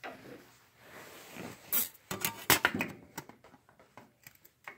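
Metallic clatter of copper sheet being handled in a sheet-metal finger brake: a quick run of sharp clanks and clinks a couple of seconds in, with softer scrapes and taps around it.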